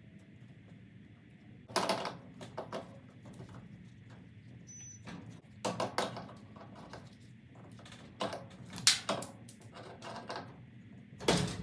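Scattered metal clicks and clinks, about eight of them at uneven intervals, from garage door opener hardware being handled at the link rod's wall bracket, the sharpest near the end.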